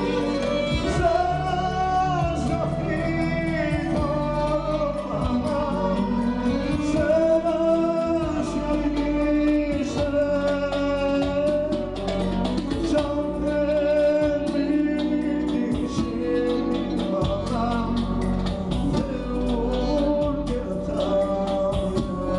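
Live band music: a duduk plays an ornamented, wavering melody over electronic keyboard accompaniment with a steady bass and a frame drum, and a male voice sings.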